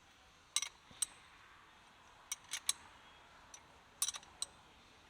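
Sharp metallic clicks and clacks in small clusters, from the MGW X-Spec short-throw shifter and its hardware being worked and moved.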